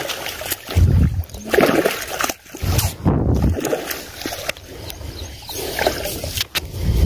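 Water splashing and sloshing in irregular bursts, roughly once a second.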